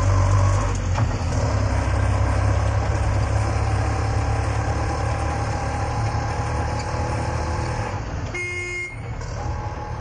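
Auto rickshaw engine running steadily, with one short horn toot about eight and a half seconds in.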